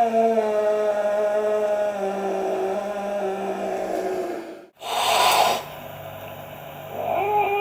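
Angry cat's long, low yowl, slowly falling in pitch, which breaks off abruptly after about four and a half seconds. A short hiss follows, and another yowl starts near the end.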